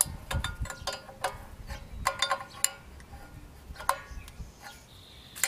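A 17 mm wrench clinking against the hub-bearing bolts and hub on a Toyota Tacoma front steering knuckle as the bolts are snugged down: scattered sharp metal clicks with brief ringing, in small clusters.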